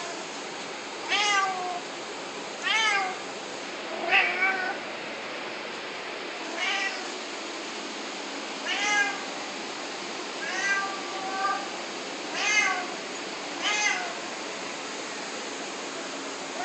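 Domestic cat meowing over and over: about nine drawn-out meows a second or two apart, whining to be let back inside.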